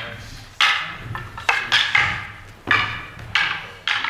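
Wooden practice swords (bokken) clacking together in paired kumi-tachi sword drills: about six sharp wooden knocks at an uneven pace, each ringing on briefly in the hall.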